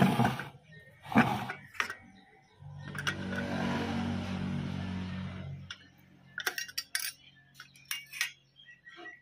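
Metal knocks and light clinks from handling the head and face plate of an old sewing machine, with a steady whirring noise for about three seconds in the middle.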